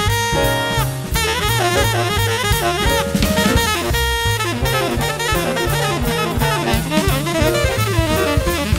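Background jazz music: a saxophone lead with sliding notes over a drum kit and a bass line.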